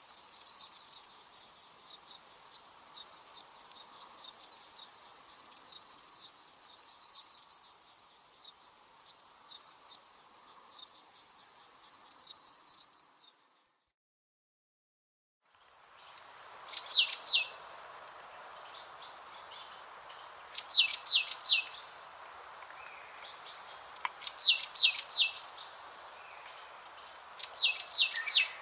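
Songbirds singing high-pitched phrases. First come rapid trills repeated every few seconds; after a sudden two-second silence a different song follows, with clusters of quick falling notes about every three to four seconds, over faint steady background noise.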